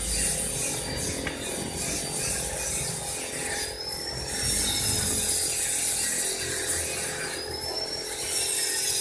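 Workshop tool noise from steel being worked: a steady high rasping hiss with a faint whine that wavers up and down. In the first few seconds there are sawing-like scraping strokes about three a second.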